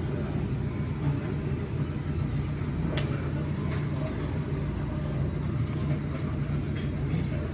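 Steady low hum and rumble of restaurant background noise, with a single sharp click about three seconds in.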